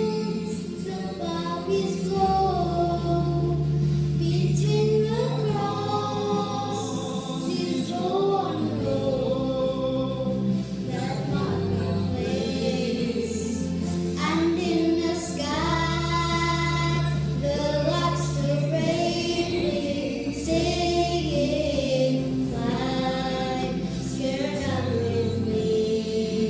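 A group of children singing a song together over an accompaniment with long held low notes.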